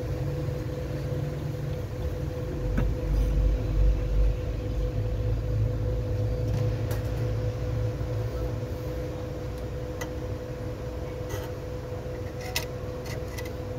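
A small motor runs steadily with a constant hum, with a few faint clicks.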